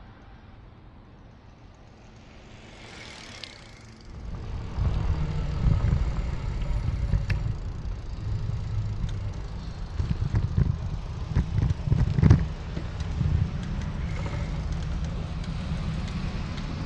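Wind buffeting the microphone of a camera on a moving e-bike, a loud, fluttering rumble that sets in about four seconds in as the bike picks up speed, with a few sharp knocks over it. Before that, quieter street and traffic sound.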